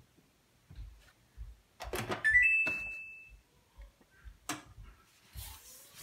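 Samsung EcoBubble washing machine clicking and giving a short electronic beep about two seconds in as its calibration cycle starts, followed by a few more clicks.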